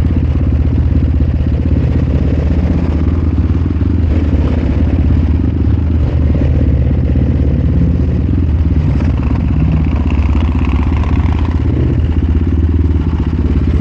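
Supermoto motorcycle engine running steadily while under way, with no marked revving or changes in pace.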